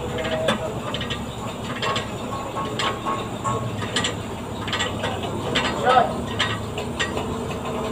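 Hand tools clicking and clinking against metal as bolts are worked on the underside of a car, with irregular sharp clicks over a low steady hum.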